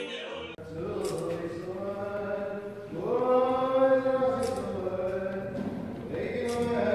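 A brief tail of recorded music, then men's voices chanting a prayer in a synagogue, with long, drawn-out notes.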